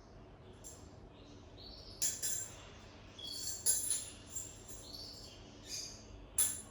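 Small birds chirping in short high calls, with a few sharp jingling clicks, the loudest about two seconds in, near four seconds and near the end.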